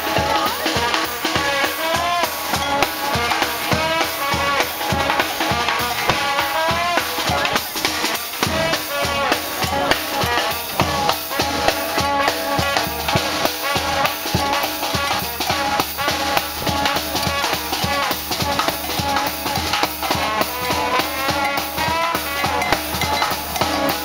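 Live street band playing, a drum kit keeping a steady driving beat of snare and bass drum under pitched melody lines.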